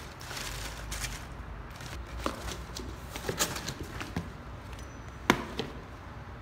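Dry and green banana leaves rustling as they are pressed down into a cardboard box, then the cardboard flaps folded shut with a few scattered taps. A sharp clack with a brief metallic ring comes about five seconds in, as a metal cleaver is set down on the lid.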